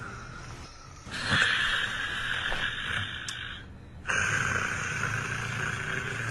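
A man snoring: two long, noisy breaths, the first starting about a second in and the second about four seconds in, with a short pause between them.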